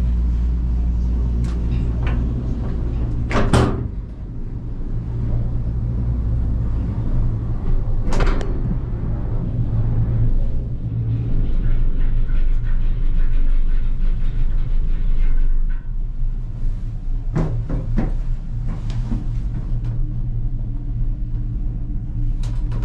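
Inside a 2006 Doppelmayr gondola cabin in motion: a steady low hum and rumble, broken by sharp clunks from the cabin's grip and carriage running through the station and over the line's sheaves. The loudest clunk comes a few seconds in, another at about eight seconds, and a quick run of three comes later. A faint whine sounds in the middle.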